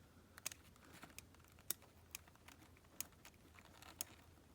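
Faint, sharp clicks of a small circlip, washer and hand tools being handled, about five of them spread irregularly over a few seconds.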